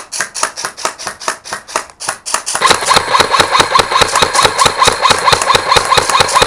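Airsoft gun firing on full auto in a long, continuous string of shots at a steady rapid rate, growing louder about two and a half seconds in.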